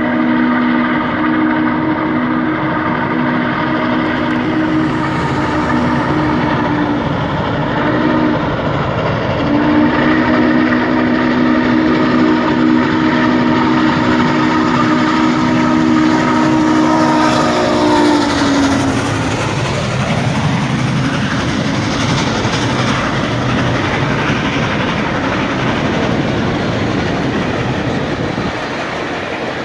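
Norfolk & Western steam locomotive's chime whistle sounding two long blasts, the second sagging in pitch as it dies away. Then the engine and its passenger cars rumble past close by, working hard.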